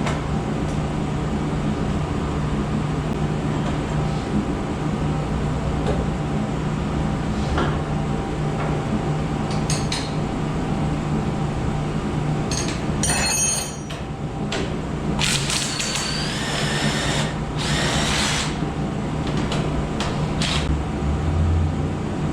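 Hand-tool work on an ATV's steering linkage: metal tools clinking and clicking against fittings, with a brief run of a small power tool spinning up about three-quarters of the way through, over a steady mechanical hum.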